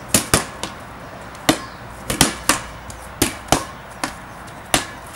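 A red rubber ball being slapped by hand and bouncing on a concrete patio during a game of handball: about a dozen sharp, irregularly spaced smacks.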